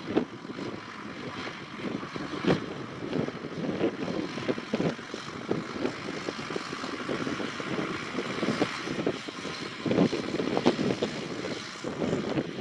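John Deere tractor's diesel engine running steadily as the tractor drives across a field, with occasional short thumps.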